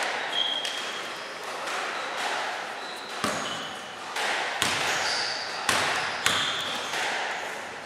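A basketball bouncing hard on a gym floor, about four bounces in the second half, each ringing with echo in the hall. Faint short high squeaks sound in between.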